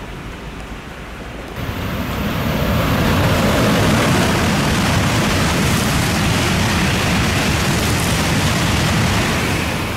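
N700-series Shinkansen passing through the station at speed without stopping: a loud rushing noise of air and wheels that comes on suddenly about a second and a half in, holds steady for about eight seconds and falls away near the end. Steady rain runs underneath.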